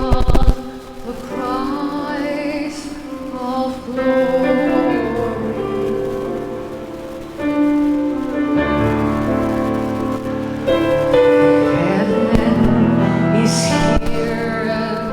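Slow worship music: held chords and bass notes changing every few seconds, with a singing voice gliding over them. A burst of percussive hits ends about half a second in.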